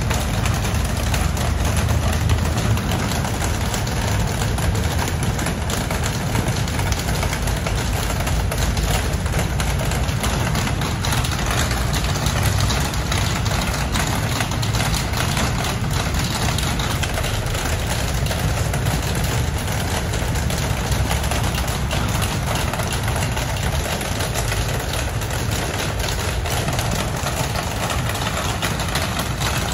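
Steady low engine-like rumble, as of a vehicle idling, with a fainter hiss over it and no change in level.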